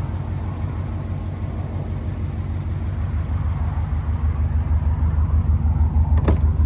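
Subaru Impreza STi's flat-four boxer engine idling steadily with an even, pulsing low rumble. A sharp click near the end as the driver's door is opened.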